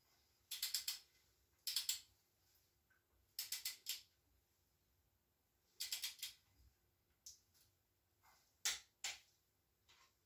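Torque wrench ratcheting in short runs of three or four quick clicks a second or two apart, with two single clicks near the end, as cylinder head bolts are tightened to the first stage of 40 foot-pounds.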